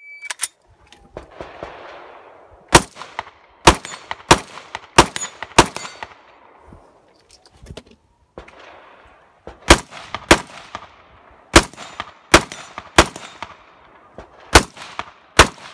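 A short electronic beep at the very start, the shot timer's start signal, then a semi-automatic rifle fired close by in two quick strings of shots: about five shots a little over half a second apart, then, after a pause of a few seconds, about seven more.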